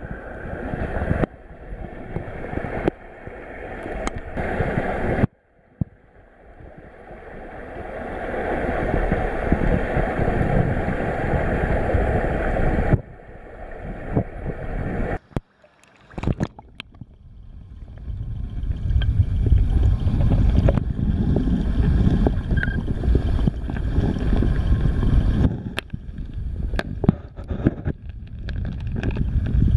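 Stream water flowing past an underwater camera housing: a muffled, low rushing and gurgling noise with a few faint clicks. It cuts out and returns abruptly several times.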